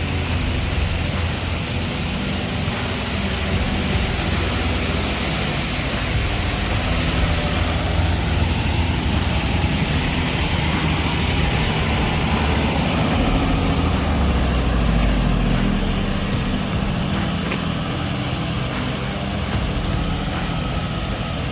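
Heavy-haul trucks' diesel engines running steadily with a low rumble, with a short sharp hiss about fifteen seconds in.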